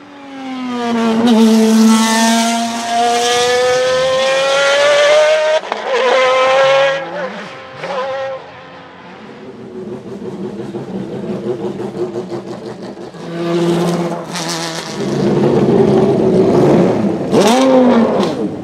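BMW V12 LMR's naturally aspirated V12 accelerating hard up the hill, its note rising through the gears with upshifts about five and seven seconds in, then fading away. Near the end a racing engine is revved in short blips, one sharp rise and fall shortly before the close.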